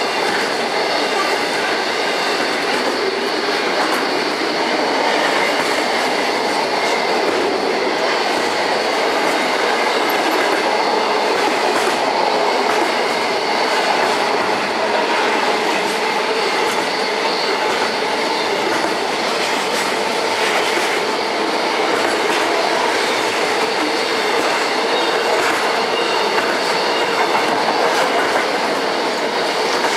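An intermodal freight train's container wagons rolling past at close range: a steady, loud rumble of steel wheels on rail with scattered clicks from the track. A faint, thin, high wheel squeal runs over it.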